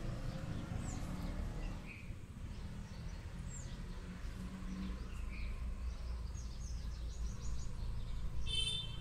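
Steady low background rumble with scattered small bird chirps, and a short, stronger high call near the end.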